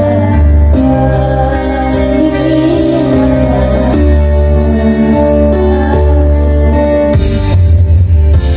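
Two boys singing into microphones over amplified instrumental music, heard through a PA system; drums and a cymbal come in near the end.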